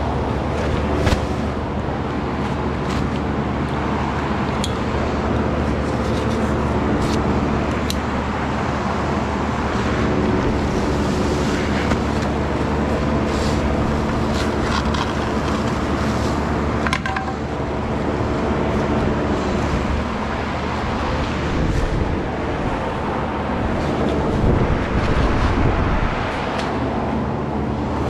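A steady machine hum made of several even, unchanging tones, with scattered scrapes and knocks over it.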